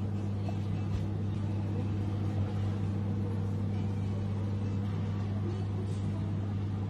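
A steady low machine hum, even in level throughout.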